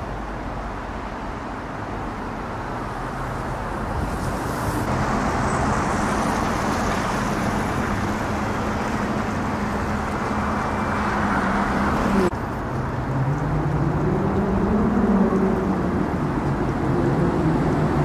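Road traffic: cars and an articulated city bus driving past, a steady hum that grows slowly louder. About twelve seconds in it cuts to a tram moving through a junction, its motors whining up and down in pitch.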